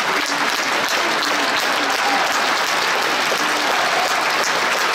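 Theatre audience applauding steadily at a curtain call.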